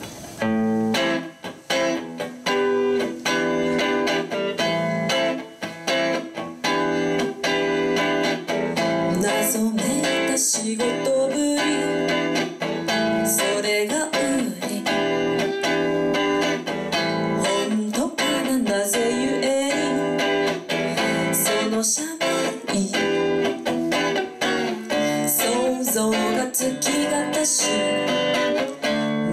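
Live song: an electric guitar strummed steadily, with a woman singing into a microphone.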